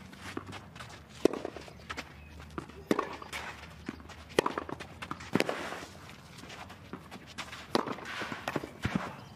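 Tennis rally on a clay court: about six sharp racket strikes on the ball, a second or two apart, with players' footsteps on the clay between them.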